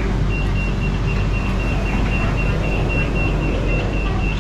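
Door-closing warning on a monorail train: a quick run of short, high beeps at one pitch while the car doors and platform screen doors slide shut, over the train's steady low hum.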